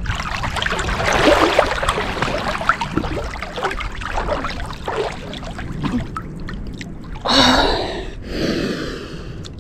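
Cold lake water splashing and sloshing close to the camera as a swimmer sinks in to her neck, then two loud, heavy breaths near the end: the gasping breath of cold-water immersion.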